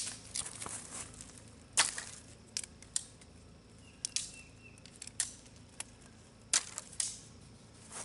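Dry sticks snapping and cracking: a dozen or so short, sharp snaps at irregular intervals, the loudest about two seconds in.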